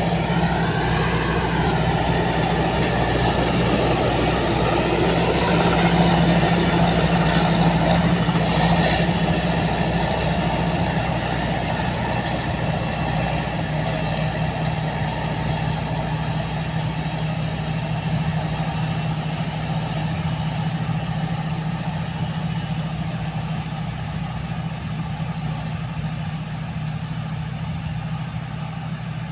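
Rice combine harvester's diesel engine running steadily with a constant low hum, and a short hiss about nine seconds in.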